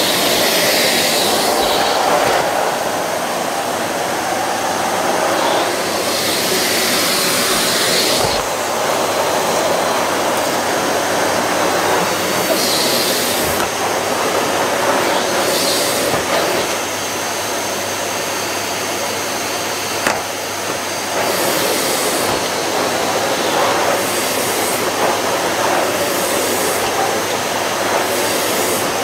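Two bagged cylinder vacuum cleaners, a Numatic Hetty and a Miele, running together with a steady rushing drone of motors and suction. The hiss swells and fades every second or two as the floor heads are pushed and pulled over the carpet.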